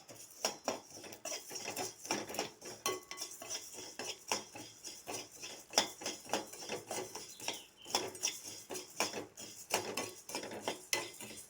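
Spatula stirring coriander seeds as they dry-roast in a kadai: irregular scraping and clinking strokes, several a second, with the seeds rattling against the pan.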